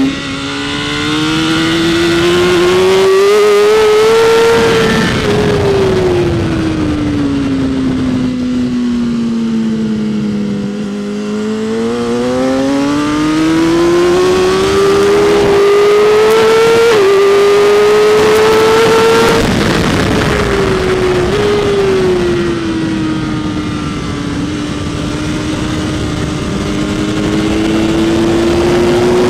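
BMW S1000RR inline-four engine at track speed, its revs climbing on the throttle and falling away into corners several times, with a quick gearshift about 17 seconds in. Wind rush over the microphone throughout.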